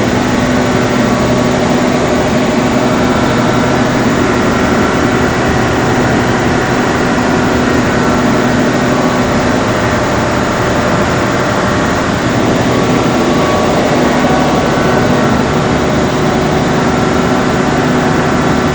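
630 kVA diesel generator running steadily, a loud, even drone with several held tones over it.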